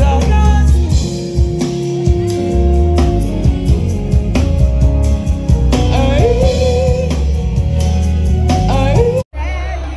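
Live soul/R&B band with a lead singer: a wavering vocal line over heavy bass guitar and drum kit. The sound drops out suddenly for a moment near the end, then returns changed.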